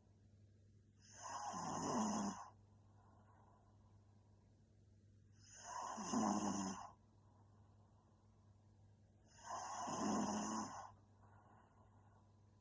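A young woman snoring in her sleep: three snores about four seconds apart, each lasting a little over a second, with softer breaths between them.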